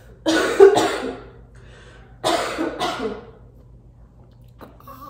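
A woman with a head cold coughing: two coughs in quick succession, then two more about two seconds later.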